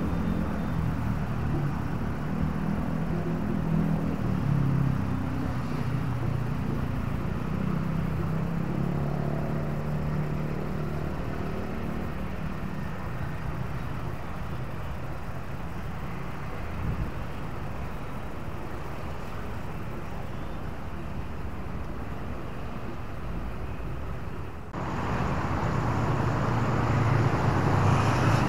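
Road traffic: a vehicle engine running low and steady for about the first dozen seconds, then a quieter stretch of steady traffic noise. About 25 s in, the sound abruptly turns louder and fuller with nearer traffic.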